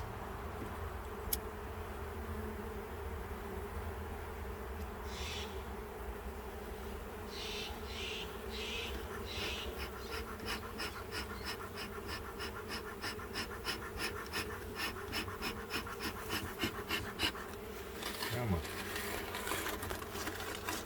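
Honeybees buzzing steadily around an open hive, over which a beekeeper's smoker bellows puffs: a few separate puffs, then fast, regular pumping from about ten seconds in to get the smoker burning again.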